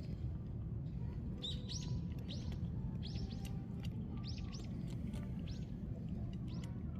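A small bird chirping: a run of short, quick high chirps, about two a second, over a steady low rumble.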